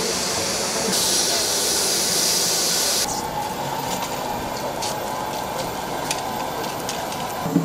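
Embraer Legacy 600 business jet's turbofan engines running as it taxis: a steady high hiss that gets louder about a second in, then cuts off sharply about three seconds in, leaving a fainter steady whine with scattered clicks.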